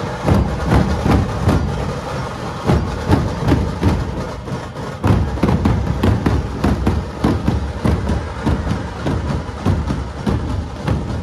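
A dhol pathak's large barrel dhol drums beaten with sticks by many players together: loud, fast, dense strokes with a heavy low boom, several beats a second.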